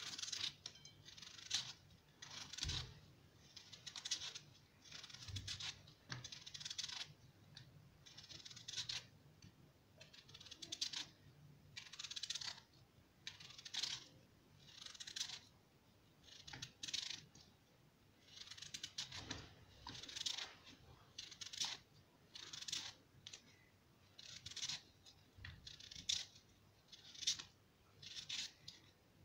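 Kitchen knife slicing a peeled raw potato into paper-thin chips by hand: a faint scrape as the blade passes through the potato, repeated about once a second.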